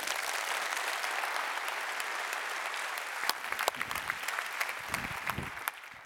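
Audience applauding: steady clapping with a few single claps standing out, fading away over the last second or so.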